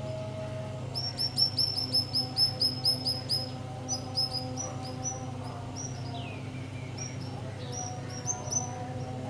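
Small birds singing: a quick run of about a dozen high, sharp chirps, then scattered chirps and a falling call about six seconds in.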